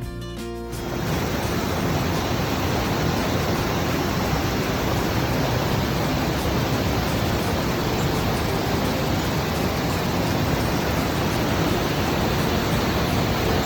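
Steady, loud rush of falling water, after background guitar music cuts off about a second in.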